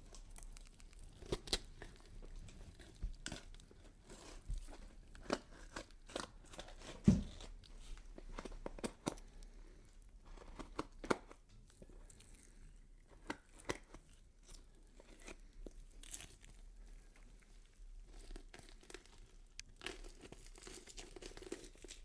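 Horror dismemberment sound effect: irregular tearing and crunching with sharp cracks, and one heavy thud about seven seconds in.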